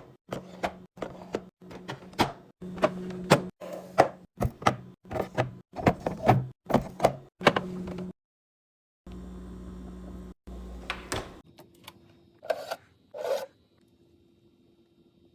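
Plastic containers and packaged groceries being set into a fridge and its door shelves: a fast run of short clicks, taps and knocks, then two softer knocks after a brief break.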